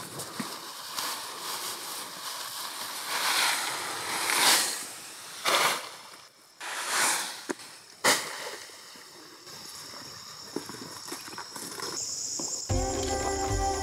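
Freshly cut long grass rustling and swishing as it is gathered up by hand, with several louder swishes in the middle. Music comes in near the end.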